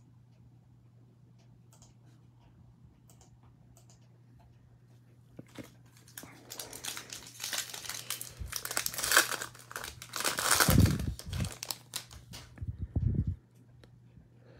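A trading-card pack wrapper torn open and crinkled by hand. The crinkling starts about six seconds in, lasts about seven seconds, and has a few low thumps near the end.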